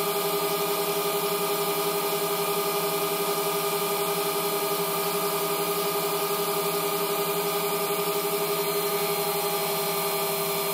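Mill-drill spindle running steadily, a hum with several held tones, while its end mill cuts around the profile of a small engine's exhaust cam lobe held on a rotary table.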